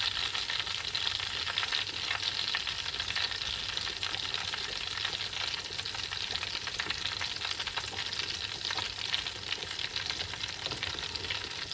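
Salted fish frying in palm oil in a pot: a steady sizzle with many small crackles and pops.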